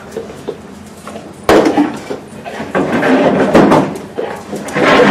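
Plywood scent-detection boxes being lifted and shifted by hand, with wooden knocks and bumps: a sharp knock about a second and a half in, then more bumping and shuffling.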